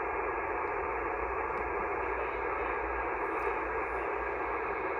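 Steady hiss of band noise from an HF amateur radio receiver in single-sideband mode, heard through its narrow voice passband while no station is transmitting.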